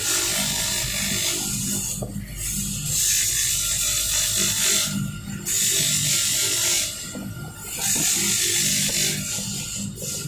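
Brass faucet mixer body being ground against a spinning polishing wheel: a harsh abrasive hiss in passes of two to three seconds, breaking off briefly between passes, over the steady hum of the wheel's motor.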